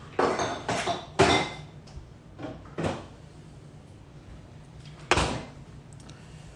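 Kitchen handling clatter: about six sharp knocks and clacks, three close together in the first second and a half, two more around two and a half to three seconds in, and a single loud one about five seconds in.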